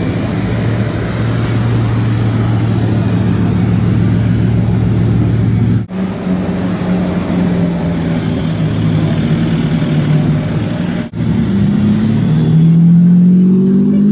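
Three supercar engines in turn: a Bugatti Veyron's W16 running at a steady low note for about six seconds, then a Ferrari 458's V8 passing at a steady pitch, then a Ferrari 599's V12 revving up as it pulls away in the last few seconds.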